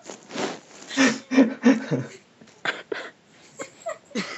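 A sleeping person snoring over a voice-chat call: a series of short, separate snorting snores, one of them likened to a little piggy.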